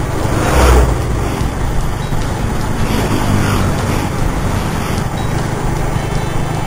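Road noise from riding a motor scooter: a steady engine drone and low wind rumble on the microphone, with oncoming vehicles rushing past, the loudest under a second in and another about three seconds in.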